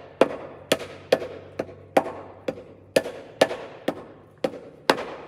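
Black mallet tapping a cylinder liner down into its bore in a Detroit Diesel 8V92TA block: light, even blows about two a second, each with a short metallic ring. This is the liner being seated by hand-guided taps during engine reassembly.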